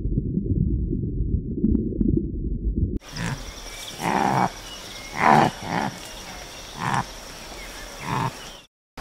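A low, muffled rumble for about three seconds, then after an abrupt change four short animal grunts spaced a second or so apart over faint outdoor background.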